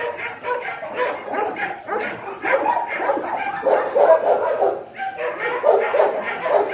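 Several dogs barking and yipping over one another, short calls following in quick succession without a break.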